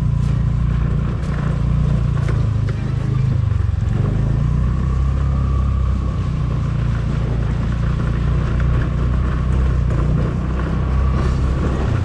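TVS Ntorq 125 scooter's single-cylinder engine running at low riding speed: a steady low rumble with a faint whine above it.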